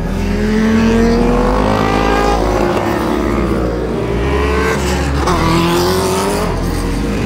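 Lamborghini Aventador's V12 engine revving as the car pulls away. It climbs in pitch, falls back about two and a half seconds in, then climbs again near the end.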